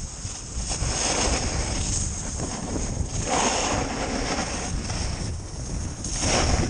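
A snowboard sliding over snow, with wind rushing across the microphone. The board's scrape swells louder twice, about three seconds in and near the end.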